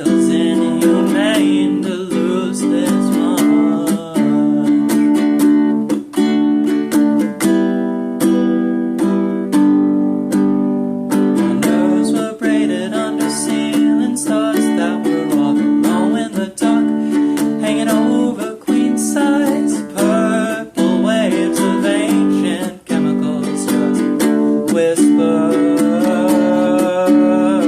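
Instrumental passage of a song on a strummed acoustic stringed instrument, steady chords struck several times a second, with a wavering melody line above them.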